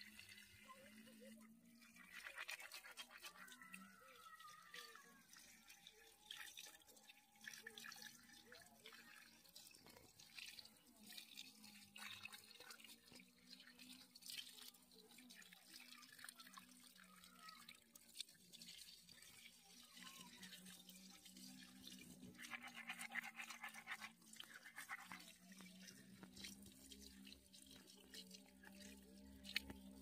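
Faint splashing and dripping of water as bunches of chive roots are rinsed and shaken by hand, with two bouts of quick rubbing or scrubbing of the wet roots.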